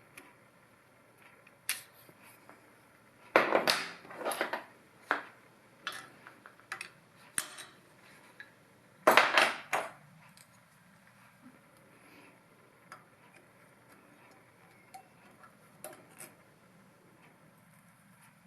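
Metal hand tools and parts being handled: irregular clinks and clatters, in two louder clusters about three to five seconds in and about nine seconds in, with scattered lighter clicks between.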